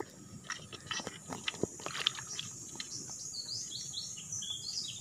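Short wet clicks and squelches from a hooked rod being worked in a flooded mud crab burrow. From about three seconds in, a small bird chirps in quick high notes.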